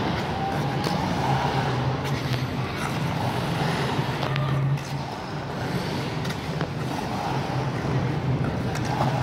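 Steady low rumble and hiss of an indoor ice rink, with faint distant voices.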